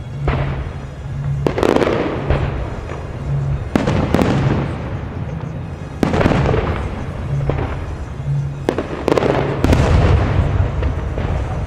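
Fireworks display: aerial shells bursting in a run of about ten loud bangs, each trailing off over a second or so, with music playing underneath.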